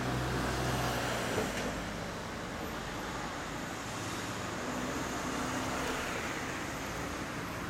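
Steady road traffic noise from passing vehicles, with the low hum of an engine going by near the start and again about halfway through.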